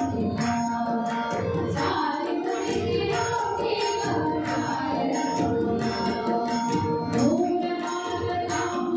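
Woman singing Indian classical vocal music in sliding, held phrases over a steady drone, with tabla strokes keeping a regular beat about twice a second.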